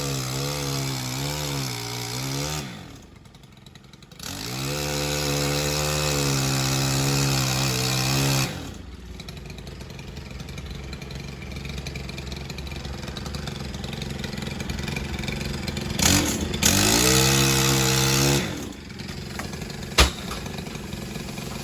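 Petrol engine revving up and down in three spells, running lower and steadier in between, with a sharp click near the end.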